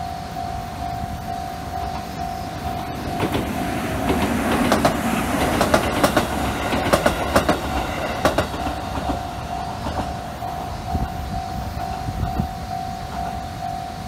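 Japanese railway level-crossing alarm ringing its steady pulsing bell while an electric train passes through the crossing. The train's wheels clack over the rail joints from about three seconds in to about eight seconds in and drown the bell at their loudest. The bell keeps ringing after the train has gone.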